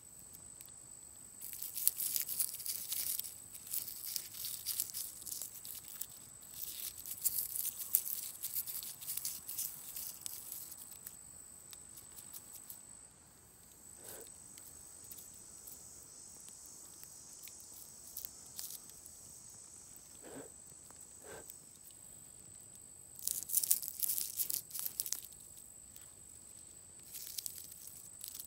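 Dry wheat heads being crushed and rubbed between the hands to dehusk the grain: dry crackling rustles that come in bouts, with a long pause in the middle.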